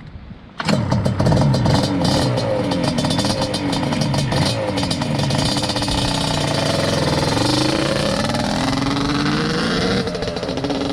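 Yamaha Banshee's two-stroke parallel twin on DMC Alien expansion-chamber pipes, revving under throttle, its pitch rising and falling repeatedly. It starts suddenly just under a second in, and near the end it dips and then climbs more steadily.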